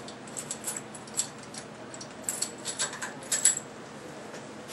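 Light metal clicks and taps as the exhaust cap and spacer are lifted off the top of a CATalyzer pump's air motor, with a small cluster of clinks about halfway through.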